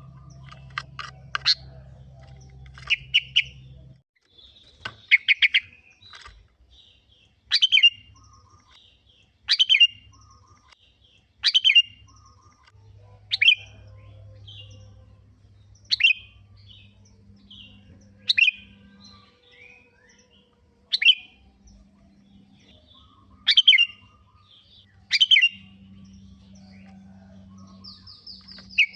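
Sooty-headed bulbul (kutilang) calling: short, sharp, falling chirps repeated about every two seconds, with a quicker cluster of notes near the start.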